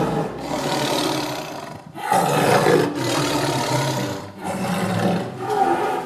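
A big cat roaring: a string of long, loud roars, one straight after another.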